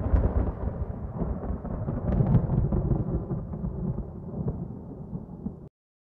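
Thunder-like rolling rumble sound effect, deep and noisy, with a sharp crack near the start and another about two seconds in, slowly fading and then cutting off suddenly near the end.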